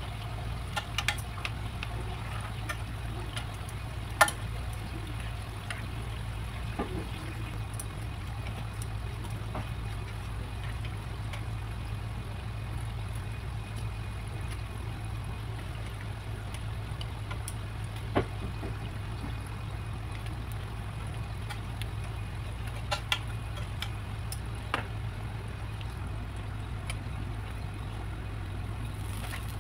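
Urad dal vadas deep-frying in a pan of hot oil, a steady sizzle over a low hum. Steel tongs click against the pan now and then as the vadas are turned and lifted.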